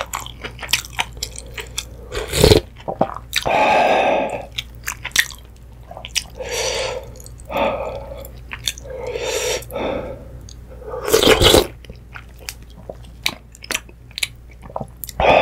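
Close-miked eating of instant ramyun: several short slurps of noodles and broth, each under a second, with chewing between them and a few sharp clicks.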